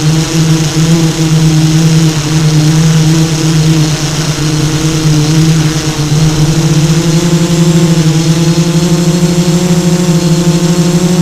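Motors and propellers of an FPV multirotor drone giving a loud, steady hum, its pitch wavering slightly and settling a little higher about halfway through.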